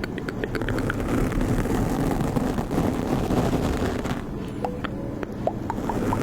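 A steady, loud low roar with wind buffeting the microphone, and a few faint short chirps near the start and again late on.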